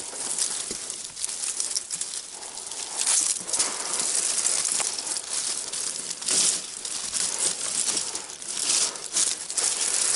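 Leafy bush branches and twigs rustling and crackling as they are grabbed and pushed aside by hand, coming and going in irregular surges.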